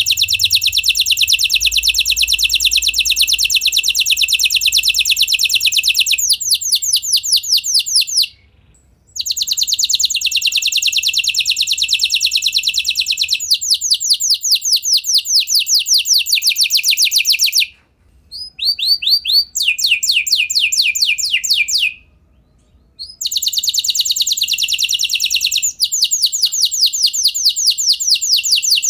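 F1 domestic canary singing a long, loud, high-pitched song of rapid trills. The notes switch between very fast rolls and slower runs of repeated downward-sweeping notes, with brief pauses about 8, 18 and 22 seconds in.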